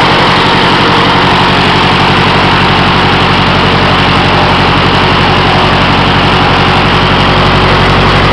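Continental 4A032 four-cylinder horizontally opposed air-cooled engine running steadily and smoothly, swinging the airboat's propeller, with the rush of the prop's wash over it.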